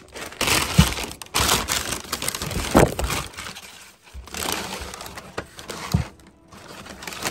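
Brown kraft packing paper crumpling and rustling as hands dig through it in a cardboard box, with a few short thumps.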